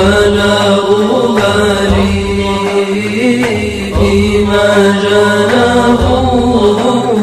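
A voice chanting an Arabic qasida in praise of the Prophet in a melismatic style, sliding between long held notes over a steady drone.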